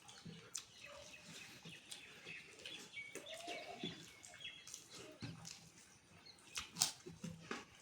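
Faint eating sounds: rice and dal being chewed, with many short irregular mouth smacks and clicks. A few brief high chirps sound between them.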